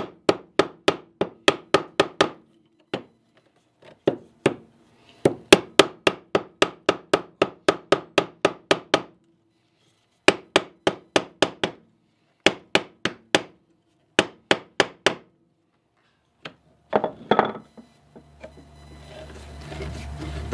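Runs of sharp, ringing metal taps, about four a second with short pauses between runs, as a screwdriver set in the rusted knob screw of an old Stanley transitional hand plane is pounded to shock the rust loose. A short scrape and a low rumble come near the end.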